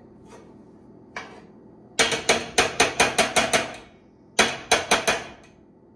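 A spoon rapping quickly against a skillet, about five or six sharp knocks a second. There are two runs: about ten knocks, a short pause, then about five more.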